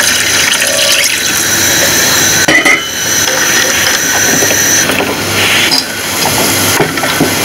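Silicone whisk stirring a béchamel of roux and hot milk in a nonstick saucepan, scraping and squeaking against the pan.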